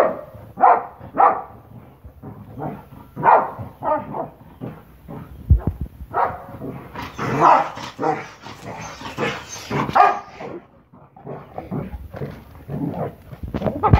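Boxer dog barking over and over in short barks, roughly one or two a second with uneven gaps. For about three seconds in the middle a harsher, hissing noise runs under the barks.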